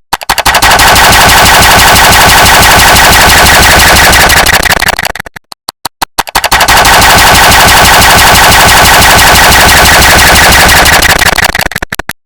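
One click sound effect repeated at extreme density, so the clicks run together into a loud, continuous rattle like machine-gun fire. It thins to a few separate clicks at the start and again about halfway through, then trails off into scattered clicks and stops just before the end.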